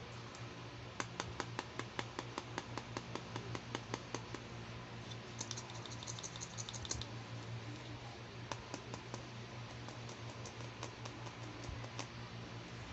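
Fingernails tapping on a plastic toy hand mirror, a run of light clicks about four or five a second, then a faster, brighter flurry around the middle, then scattered taps.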